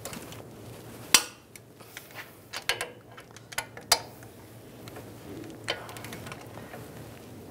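Torque wrench on the hub-to-knuckle bolts of a Ram 1500 front wheel hub, clicking as the bolts reach the set torque of 134 ft-lb. There is a sharp, loud click about a second in, then several lighter metallic clicks and clinks as the wrench and socket are worked on the bolts.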